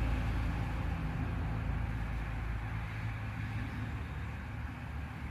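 The Silverado's engine turning over with a steady low hum that slowly gets quieter.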